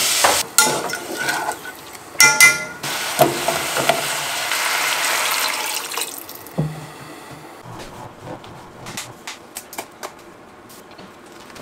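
Kitchen cooking sounds: a steady hiss for the first few seconds with a ringing clink about two seconds in, then quieter scattered clinks and knocks of dishes and utensils.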